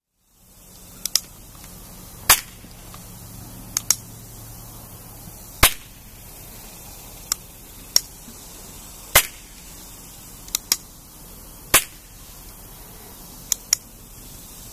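Sharp clicks or snaps, about a dozen at uneven gaps of one to two seconds, several coming in quick pairs, over a steady low hiss.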